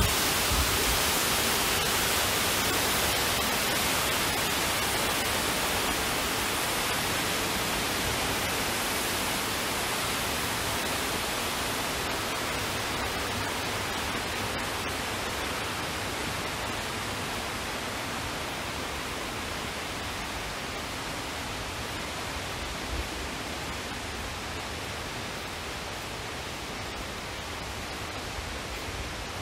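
Large indoor waterfall pouring steadily, a constant rushing that slowly grows fainter.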